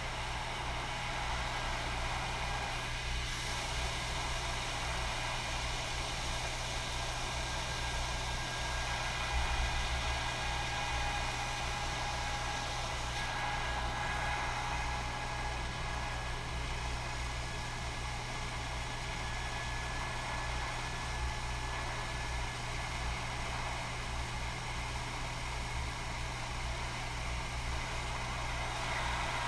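Steady fan hum and air hiss of a hot air rework station heating a circuit board to reflow solder for a chip.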